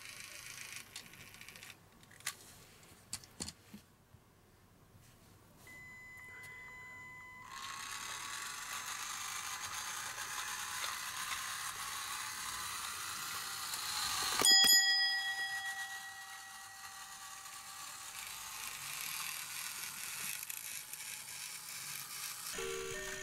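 Plarail toy streetcar running along plastic track: a few clicks, then from about eight seconds in the steady whir of its small battery motor and gears. A single bell-like ding rings out about halfway through.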